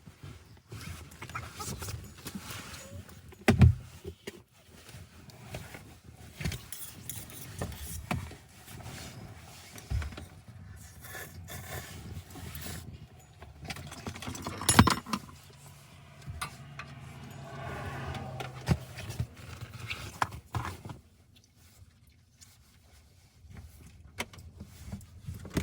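Scattered clinks, knocks and rustling of small objects being handled, with two sharp thuds about three and a half and fifteen seconds in.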